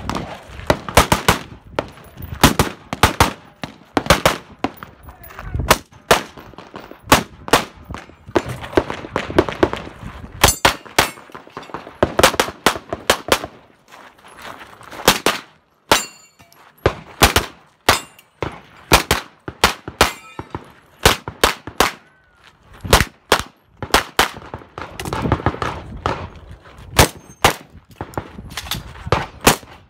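Rapid strings of gunshots from a competitor's rifle and then a semi-automatic pistol, several shots at a time with short pauses between strings, along with the metallic ringing of hit steel targets.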